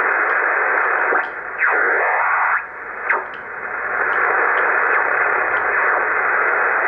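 Drake R77 HF receiver's speaker hissing with band static as its tuning knob is turned across the band. Between about one and three seconds in, a few whistles sweep down and back up in pitch as it tunes past signals, and the hiss briefly drops.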